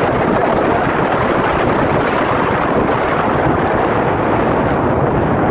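Wind rushing over the microphone with the rumble of a Giant CS800 commuter bike's 1.75-inch tyres rolling fast on rough, cracked pavement. A steady, loud noise with no let-up.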